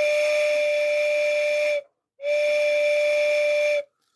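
Two mouth-blown blasts through one chamber of the molded plastic whistle from a postwar Lionel 234W whistle tender, each a breathy, steady-pitched whistle about two seconds long with a short gap between. The clear tone shows the freshly cleaned chamber is unblocked and working.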